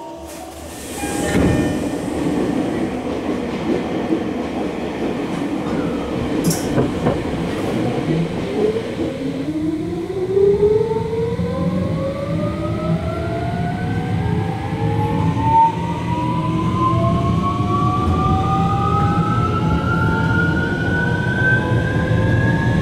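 Tokyo Metro 17000 series train's Hitachi SiC-VVVF inverter and 8-pole traction motors accelerating from a stop, heard inside the car. A loud rush of noise comes about a second in. Over the low wheel-and-rail rumble, a whine of several parallel tones starts climbing steadily in pitch about nine seconds in and keeps rising to the end.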